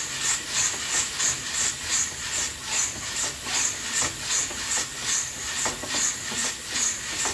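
Coffee beans roasting and tumbling in an old-fashioned coffee roaster, a rhythmic swishing rattle about three times a second over a steady hiss.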